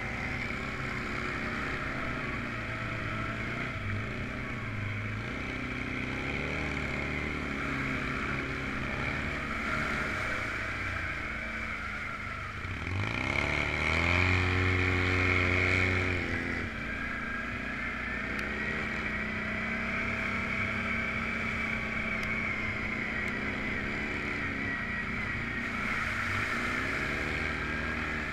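Off-road vehicle engine running along a trail. About halfway through it revs up with a rising pitch, holds high and louder for a few seconds, then drops back to a lower steady run.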